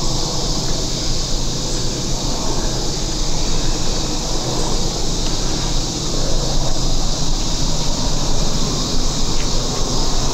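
Steady outdoor noise: a low rumble under a constant high hiss, with no distinct events.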